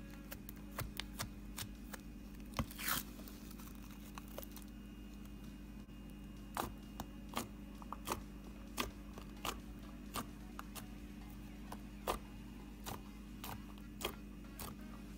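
Purple glossy slime being poked, squeezed and pressed flat by fingers, making irregular sharp clicks and pops as air pockets burst, with one longer crackling squish about three seconds in. A steady low hum runs underneath.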